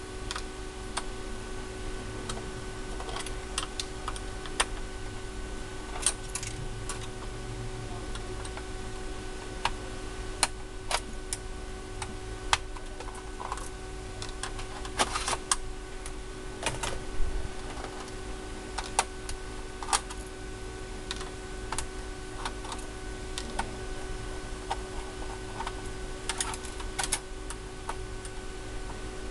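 Irregular light clicks, taps and scrapes of a small metal tool and fingers working on the metal shield of an opened PlayStation 4, over a steady low hum.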